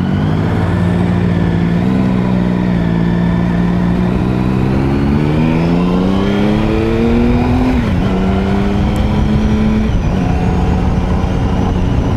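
Triumph Sprint ST 1050's three-cylinder engine accelerating under the rider. Its pitch climbs for a few seconds, drops sharply as it shifts up a gear about eight seconds in, then holds steady with a brief dip about two seconds later.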